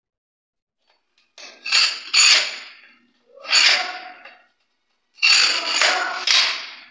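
Carbide-tipped tile scriber scratched hard across the glazed face of a ceramic tile in several short strokes, scoring a cutting line so the tile can be snapped.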